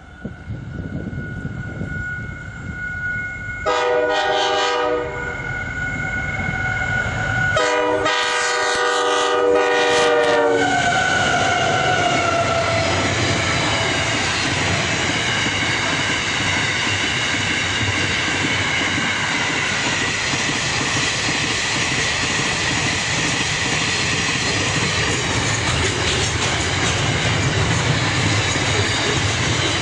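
Diesel freight locomotive horn sounding twice, a short blast then a longer one about three seconds later, as a container train approaches. Then the pitch of the locomotive drops as it passes, and the container wagons roll by with a steady rumble and wheel clatter.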